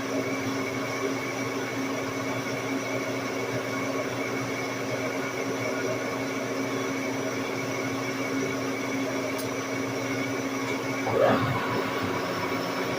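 Large engine lathe running steadily under a heavy roughing cut on a steel ring, a steady machine hum with a constant gear whine. A brief louder noise comes near the end.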